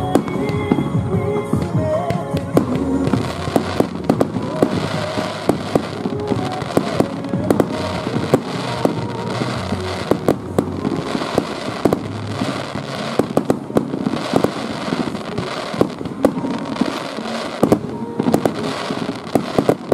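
Aerial fireworks bursting overhead: a dense run of bangs and crackles throughout, over music playing.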